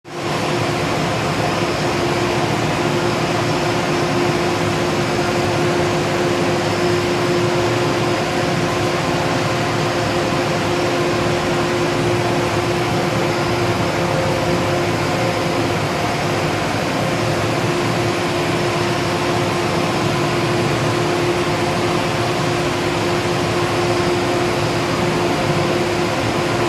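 A fan or blower running steadily: an even rushing noise with a constant hum, unchanging throughout.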